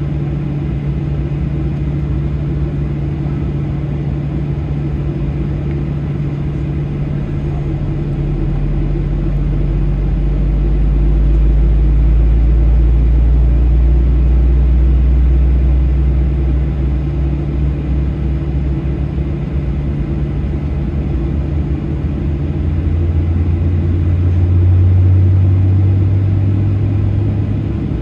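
Steady low cabin rumble of a Boeing 737-800 on the ground with its CFM56-7B engines running, a deep drone that swells twice, about ten seconds in and again near the end.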